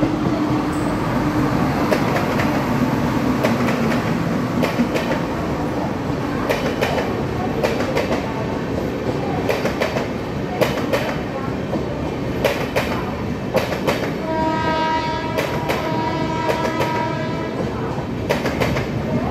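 Indian Railways WAP-7 electric locomotive and its LHB passenger coaches passing at speed: a steady rumble with a run of sharp wheel clicks over the rail joints. A horn sounds for about three seconds a little past the middle.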